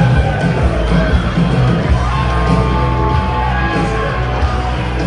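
Loud music with a heavy bass line and a singing voice, with yells and whoops over it.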